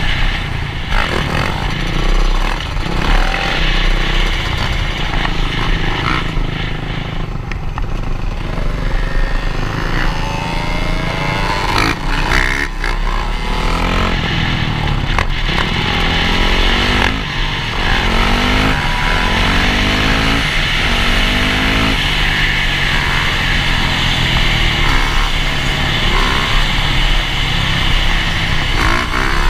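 Dirt bike engines running at speed, close by, one of them a Yamaha. Through the middle, the pitch rises again and again as the throttle is opened and the bikes go up through the gears. Under it all is a heavy low rush from the ride.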